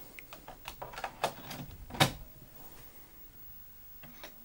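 A floppy disk pushed into the Amiga 500's built-in 3.5-inch floppy drive: a run of light clicks and rattles, then a sharp clack about two seconds in as the disk seats, and two more clicks near the end.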